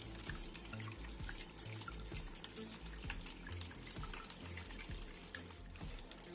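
Water trickling and dripping in a small homemade indoor waterfall fountain, with many small irregular drips.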